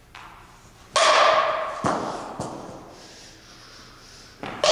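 Softball bat hitting tossed balls off soft toss: a loud, ringing crack about a second in that fades over a second in the hall's echo, a couple of lighter knocks as the ball lands, and another crack of the bat right at the end.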